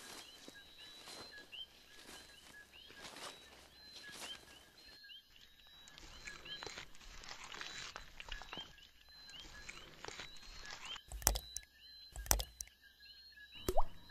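Rainforest ambience of repeated short bird chirps and a thin high steady tone, then three sharp, loud water-drop hits near the end, the last a plop with a quick rise in pitch.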